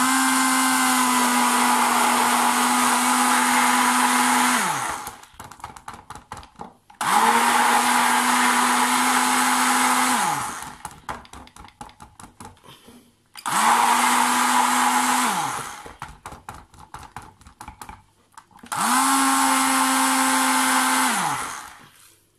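Hand-held stick blender running in four bursts of a few seconds each as it blends cocoa into soap batter in a plastic jug. Its motor pitch falls away as it spins down at the end of each burst, with faint rapid clicks in the pauses.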